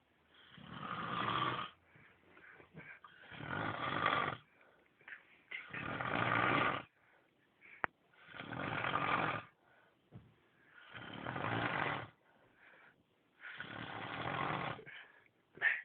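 A sleeping man snoring loudly and rhythmically, six long rasping snores about two and a half seconds apart with quiet pauses between breaths. A single sharp click falls about halfway through.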